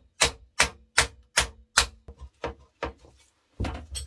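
A run of sharp metal taps, like hammer blows, about two or three a second, working a motorcycle front brake caliper that is held on the disc by a worn lip. The taps turn softer about halfway through, and a heavier knock comes near the end.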